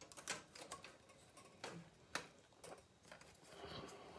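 Faint, scattered small clicks and taps as a wooden sweep stick gauge is fitted onto model railroad track rails by hand, with a soft rustle near the end.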